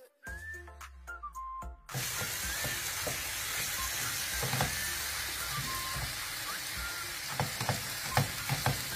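Corned beef and diced potatoes frying in a pan, with a steady sizzle that starts about two seconds in. A wooden spatula knocks and scrapes against the pan as the hash is stirred.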